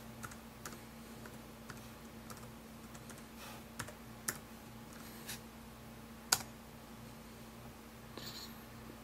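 Typing on a computer keyboard: scattered soft key clicks, with one sharper key strike a little after six seconds, over a faint steady hum.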